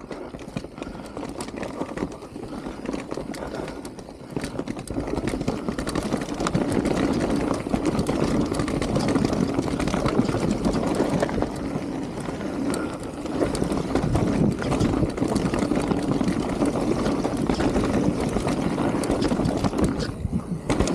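Mountain bike ridden fast down a dirt trail: a steady rumble of the tyres rolling over the dirt, constant small rattles and knocks from the bike over roots and bumps, and wind on the microphone. It gets louder about five seconds in and stays loud.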